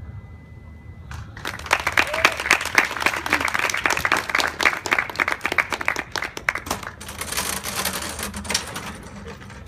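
A small audience clapping, starting about a second in with many irregular claps and dying away near the end.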